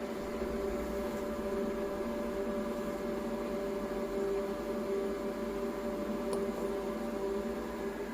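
CNC machine humming steadily with several fixed tones, its motors powered but not moving.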